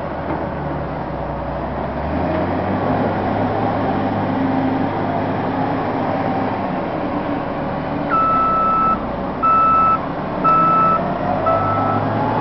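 Diesel heavy equipment running: a wheel loader and excavator working with dump trucks, the engine note rising and falling with load. About eight seconds in, a backup alarm starts beeping, a single high tone repeating roughly once a second, five beeps, louder than the engines.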